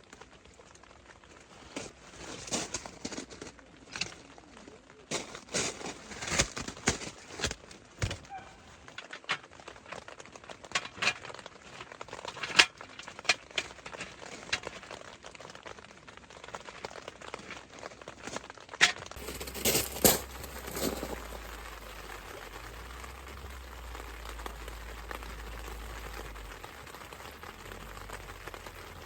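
Irregular crinkling and rustling with many sharp clicks and knocks, the sound of something being handled. About two-thirds of the way through, a steady low rumble comes in underneath.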